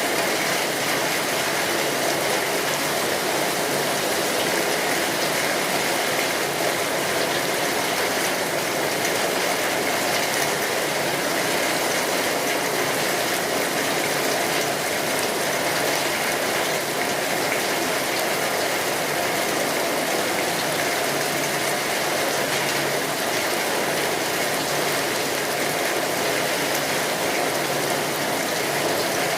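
Rain on a tin roof: a steady, dense patter of drops on metal sheeting, with the crackling of a wood fire mixed in.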